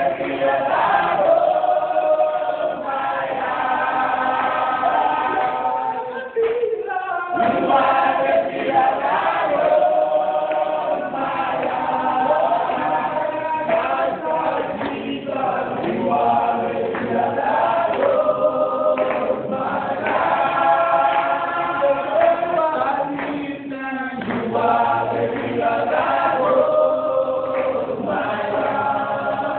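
A group of voices singing a worship song together in harmony, with short breaks between phrases about six seconds in and again near twenty-four seconds.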